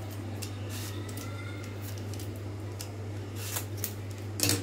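An apple being peeled: faint, irregular scraping strokes of a blade across the skin, with a few sharper clicks near the end.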